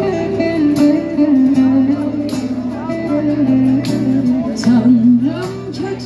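Live Turkish folk music (türkü) from a stage band: a female singer holds a continuous melody with sliding ornaments over plucked strings and percussion.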